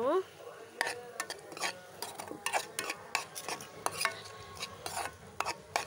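A utensil stirring chopped onions in a metal kadai: irregular scrapes and clinks against the pan, several a second, over a faint sizzle of the onions frying in oil.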